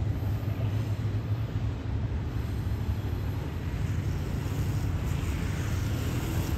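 Steady low engine rumble from a running vehicle, even throughout, with no distinct wheel clatter.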